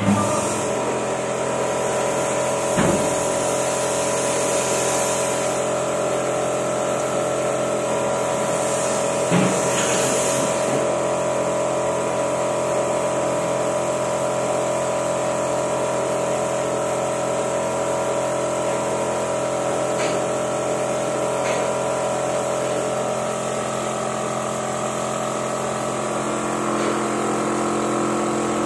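Air compressor running steadily while a paint spray gun hisses in spurts, with a couple of longer sprays in the first ten seconds.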